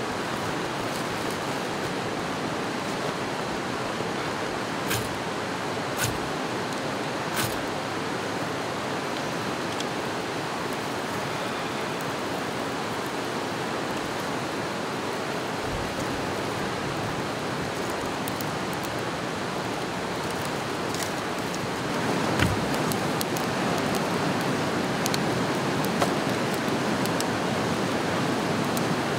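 Steady rushing of river rapids, getting slightly louder about three quarters of the way through. A few sharp clicks come about five to seven seconds in.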